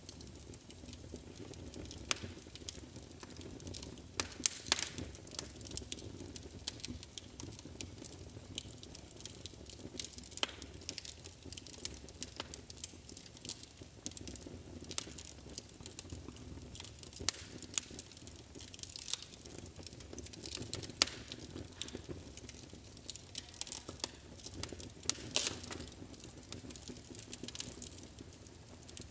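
Wood fire burning in a fireplace: irregular sharp crackles and pops over a low rumbling hiss of the flames.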